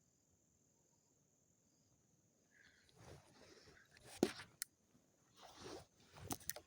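Rustling and scuffing handling noise with several sharp clicks, starting about three seconds in, over a steady high-pitched insect trill.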